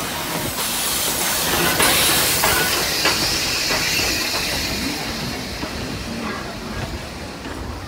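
C16-class steam locomotive No. 218 drifting slowly into the platform with steam hissing, loudest about two seconds in as the engine passes, then fading as the tender and carriages roll by with light clicks from the wheels.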